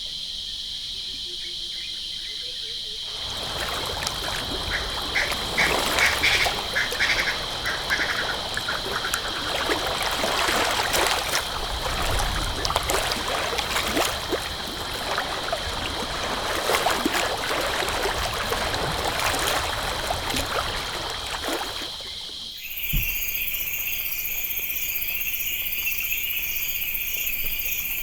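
Outdoor wildlife ambience: a steady high insect drone, then about three seconds in a dense stretch of crackling clicks and short animal calls that runs until an abrupt cut near the end to a steady, pulsing insect chorus.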